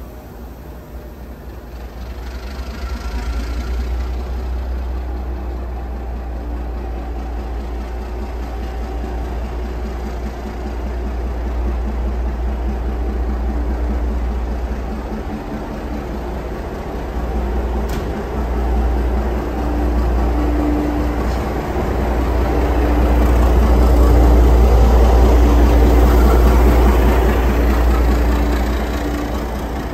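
Diesel locomotive engine running at low revs as the locomotive creeps along the platform and passes close by. Its deep drone grows louder to a peak a few seconds before the end, then eases as the carriages follow.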